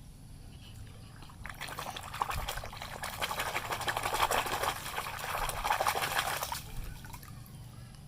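Water pouring and splashing over a muddy plastic toy vehicle as it is rinsed clean. It starts about a second and a half in and stops near the end.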